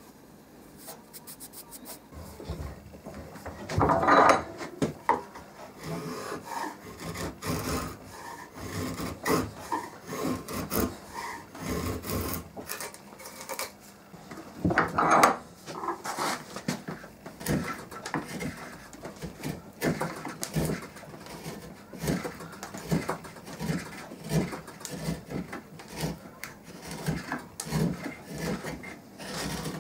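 Freshly sharpened wood chisel paring thin shavings from the end grain of a softwood board, a run of short slicing strokes with two louder cuts about four and fifteen seconds in.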